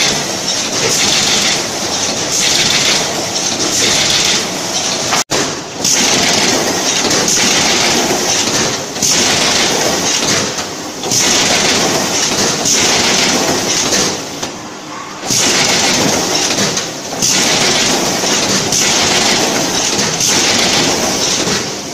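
Corrugated carton double-head stitching machine running: a loud, dense mechanical clatter from its feed belts, rollers and stitching heads, dipping briefly every second or two.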